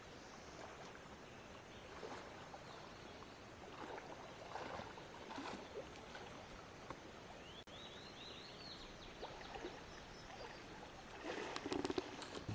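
Faint, gentle water sounds of a shallow, clear river: a steady wash with small scattered splashes and lapping. A short run of rising chirps sounds about midway, and a few sharp knocks come near the end.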